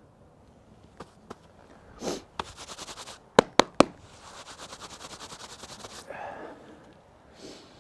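Campfire crackling and throwing sparks: three sharp pops in quick succession, then a stretch of rushing, hissing noise.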